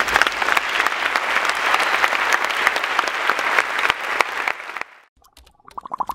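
Audience applause from a large crowd, many hands clapping at once, which cuts off suddenly about five seconds in. Just before the end a rapidly pulsing sound begins.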